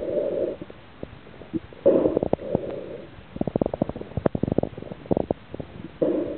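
Muffled underwater gurgling and bubbling from a snorkeler, heard with the microphone underwater, in three short surges, with a run of sharp clicks in the middle.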